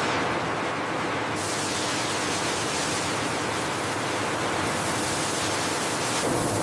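Steady rushing noise with no distinct events, changing in tone about a second and a half in and again near the end.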